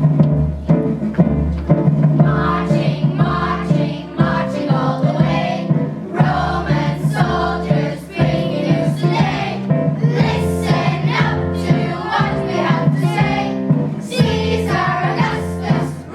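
Children's choir singing a song together over instrumental backing with a steady bass line.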